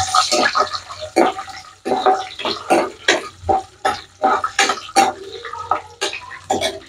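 Cashews and raisins frying and sizzling in hot oil and ghee in a non-stick wok. A steel spoon stirs them, knocking and scraping against the pan two or three times a second.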